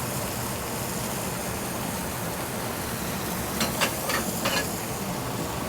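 Sea scallops searing in hot oil in a non-stick pan: a steady sizzle, with a few sharper crackles about three and a half to four and a half seconds in.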